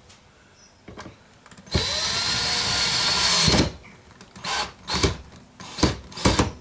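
Cordless drill driving a large securing screw into the wooden frame. The motor spins up and runs steadily for about two seconds, then gives a few short bursts as the screw is snugged home.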